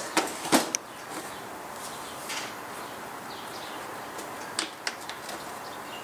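A few light knocks and clicks from the plastic dishwasher door panels being handled and seated together, the loudest about half a second in and a small cluster of three near the end.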